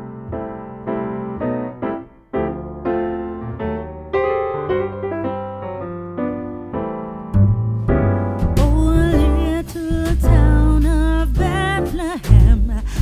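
Background music: electric piano chords. About seven seconds in, a bass and beat join, and a singing voice comes in shortly after.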